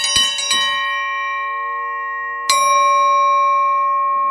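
Iron dinner bell rung by hand. A quick run of strikes dies out about half a second in and leaves a long metallic ring. It is struck once more about two and a half seconds in, and again at the very end. It is a meal call, where the number of rings tells how soon food is ready.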